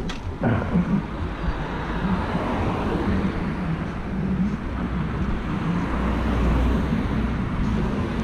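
Motorcycle engine running steadily at low speed as the bike pulls in and stops at the kerb, with wind rumble on the helmet microphone.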